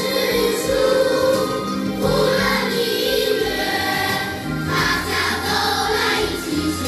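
Children's choir singing in unison with instrumental accompaniment and a steady bass line.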